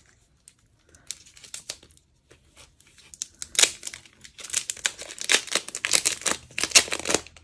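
Die-set packaging crinkling and rustling as hands pull the sleeve open: a few scattered crackles at first, then dense, rapid crinkling from about halfway through.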